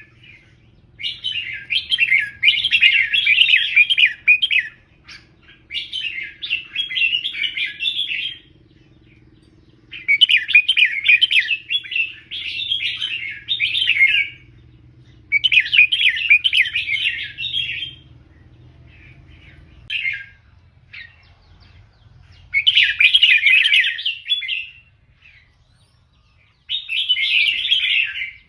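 Red-whiskered bulbul singing a run of rapid warbling phrases, each one to four seconds long, with short pauses between them.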